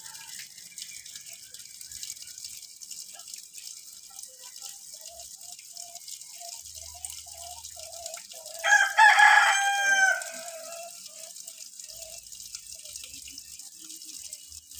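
A rooster crows once, about nine seconds in, a call of about a second and a half that falls in pitch at the end, over a steady high hiss.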